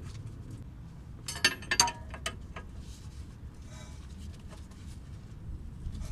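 A quick cluster of light metallic clinks about a second and a half in, from a nut and hand tools on the shock's lower mounting stud as the nut is run down by hand.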